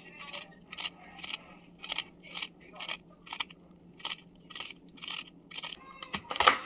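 A knife cutting bitter gourd (karela) in regular, crisp strokes, about two a second, a dozen or so in all.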